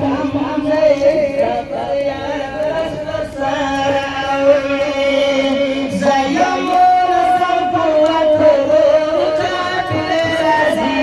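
A man singing a nazam, a chanted poem, in long held, wavering notes that slide from pitch to pitch.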